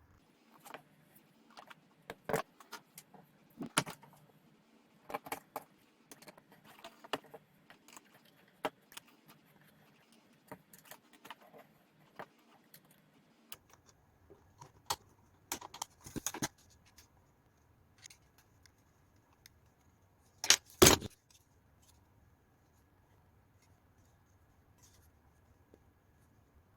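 Small metal and plastic clicks and clinks as socket screws are handled and driven in to fasten 3D-printed plastic parts together, irregular throughout, with a louder double knock about 21 seconds in.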